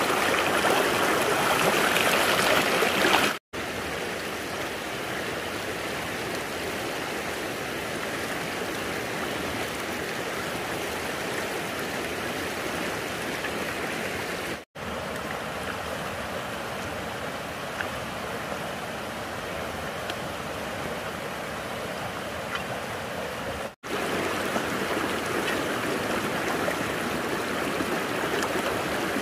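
Steady rushing of flowing water, like a stream. It is louder over the first few seconds and broken by three brief gaps, with the sound shifting a little after each gap.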